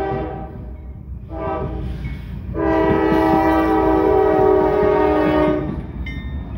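Norfolk Southern diesel locomotive's air horn blowing at a grade crossing: a blast that ends about half a second in, a short blast, then a long loud blast of about three seconds, the close of the long-long-short-long crossing signal. The low rumble of the passing locomotives runs underneath.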